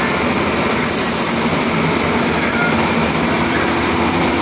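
Heavy diesel dump-truck engine running steadily at idle, with a loud even hiss over it.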